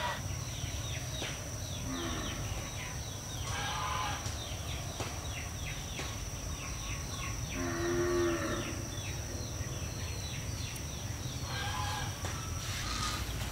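Farm livestock calling: one pitched call roughly every four seconds, over many short, high, falling chirps.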